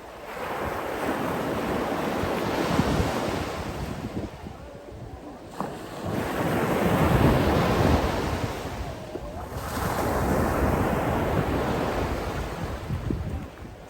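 Sea waves breaking and washing on the shore, three swells that each build and fade. Wind rumbles on the microphone throughout.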